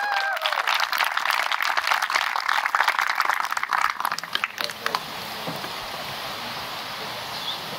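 Small crowd clapping for about five seconds, with a couple of whooping cheers at the very start, then the clapping dies away to a steady outdoor background hiss.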